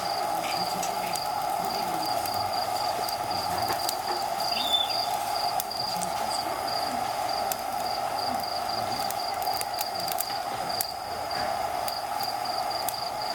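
Crickets chirping in a fast, steady pulsing trill over a steady lower hiss, with one short chirp about four and a half seconds in.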